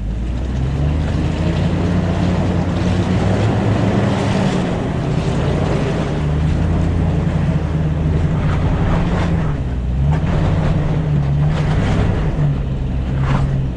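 Vehicle engine pulling hard up a steep dirt road, its pitch stepping up and down several times, with loud rough road and wind noise.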